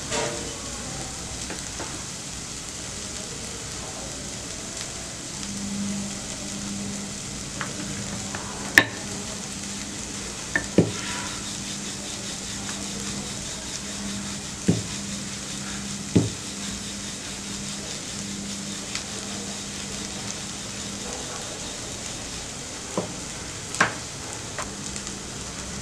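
Wooden rolling pin rolling out dough on a kitchen counter, with a handful of sharp knocks as the pin touches down, over a steady sizzle of food frying in a pan on a low flame and a low hum.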